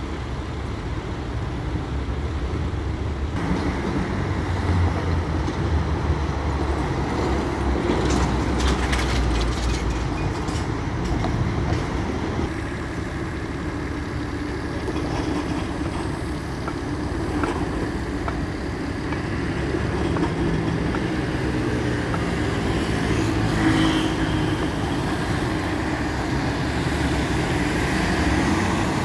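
Busy city street traffic: a steady mix of engine and tyre noise from passing road vehicles, with a deeper engine rumble through the first third.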